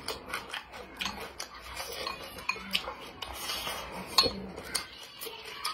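Wooden chopsticks clicking and scraping against a white ceramic bowl of spicy tofu, mixed with close-miked eating sounds. There is one sharp click about four seconds in.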